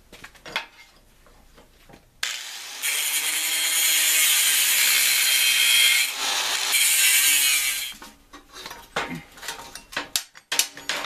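Electric angle grinder cutting through the welds that hold a steel clutch-assembly bracket to a tractor's engine plate, starting about two seconds in and running for about six seconds. Light clanks of the metal parts being handled come before and after it.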